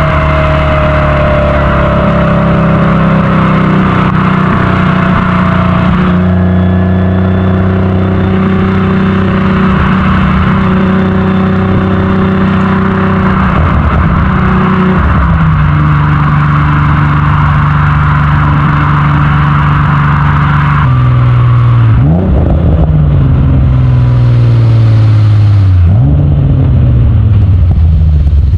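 Modified 3.0-litre V6 engine of a 1984 Alfa Romeo GTV6 running under way at steady revs, with the revs stepping down a few times. Near the end the revs jump up sharply twice and sink back each time.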